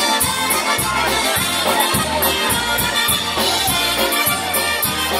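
Live polka band playing an instrumental passage: brass horns and a piano accordion with a concertina, over electric bass and drums keeping a steady oom-pah beat.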